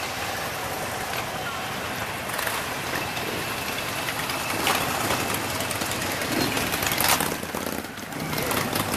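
Motorcycles, mostly Harley-Davidsons, riding slowly past one after another with their engines running at low revs, louder as each bike comes close. Spectators' voices mix in underneath.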